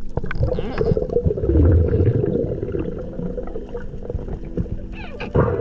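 Underwater sound picked up by a camera in a waterproof housing: muffled rushing and gurgling of water with scattered clicks, swelling into a low rumble about one and a half seconds in.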